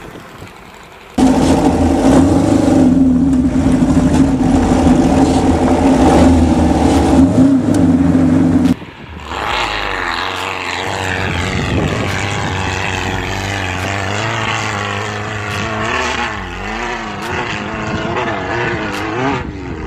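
2332cc air-cooled VW flat-four stroker engine in a Baja Bug, running hard under load on a climb. It holds steady at first; after an abrupt break about nine seconds in, its revs rise and fall repeatedly.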